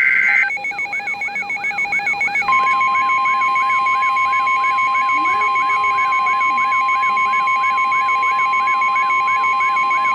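NOAA Weather Radio warning alert: the tail of a SAME digital header burst, then a rapidly pulsing electronic beep with a rising chirp repeating about twice a second, joined about two and a half seconds in by the steady 1050 Hz warning alarm tone.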